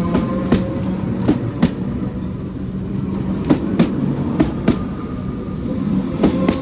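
Alstom Comeng electric train running past, its wheels clacking over rail joints in pairs over a low steady rumble and a faint whine.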